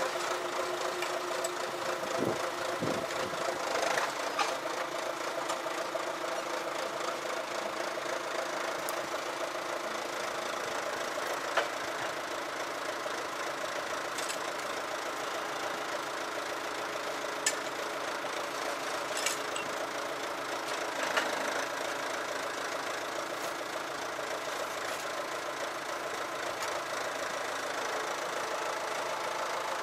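An engine idling steadily at an even pitch, with a few sharp clicks over it.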